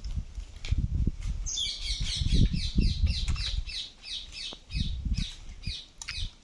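A bird calling: a rapid run of short, repeated high chirps, about five a second, starting about a second and a half in, then a few scattered calls, over a low rumble.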